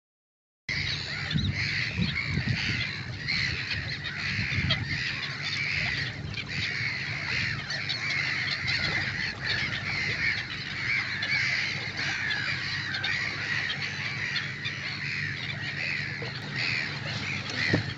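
A colony of black-headed gulls calling, many overlapping cries at once, starting suddenly under a second in, with a steady low rumble underneath.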